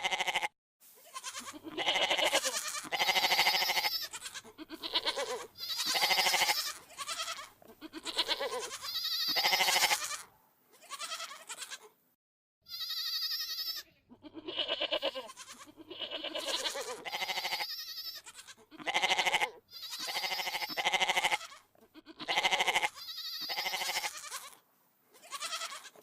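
Sheep or goats bleating again and again: a long run of wavering, quavering bleats, each about a second long, with brief pauses between them and a silent break about halfway through.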